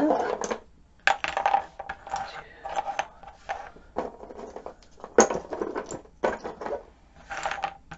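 Wooden clothespins and clothespin halves clicking and clattering as they are handled and set down one by one on a cutting mat: many irregular sharp knocks, starting about a second in.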